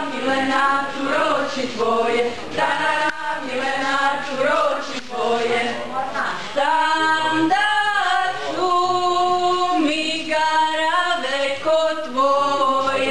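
Mixed group of women's and men's voices singing a Croatian folk song without instruments, in sustained phrases with brief breaths between them.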